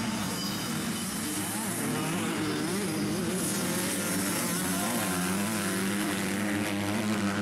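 Two-stroke 85cc dirt bike engines running hard at race speed, their pitch rising and falling as the riders work the throttle through the turns.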